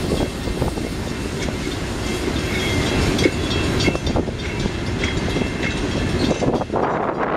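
Freight train of loaded rock hopper cars rolling past: a steady rumble of steel wheels on the rails with irregular clacks as the wheels pass over the track.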